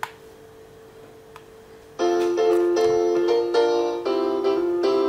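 A sharp click, then about two seconds in a children's song for an English lesson starts playing through a laptop's speaker. It opens with a bright piano-like keyboard intro of short chords in a steady beat.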